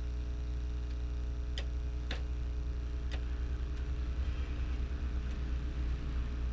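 A few sharp, light clicks of plastic printer parts being handled, spaced irregularly over a steady low hum.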